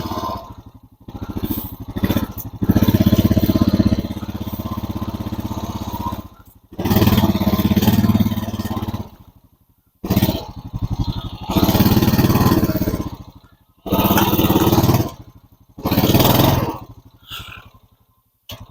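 Four-wheeler (ATV) engine revving hard in about seven bursts of one to three seconds each, with short pauses between, as it struggles to back through a deep snowbank.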